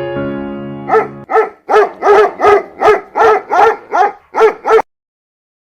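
A dog barking in a quick run of about eleven sharp barks, a little over two a second, which stops abruptly.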